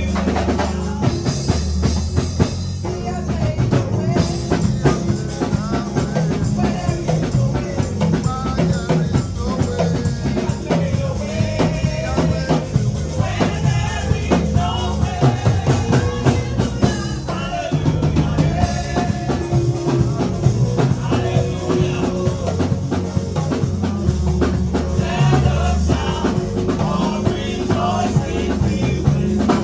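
Praise and worship music: voices singing over a drum kit with a steady beat and bass.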